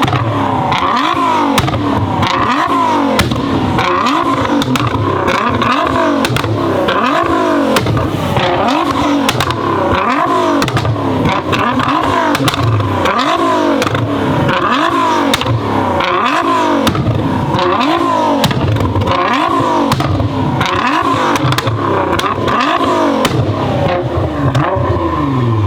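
Tuned Nissan GT-R R35's twin-turbo V6 revved again and again in quick blips, roughly one a second, with exhaust pops and crackles between the revs.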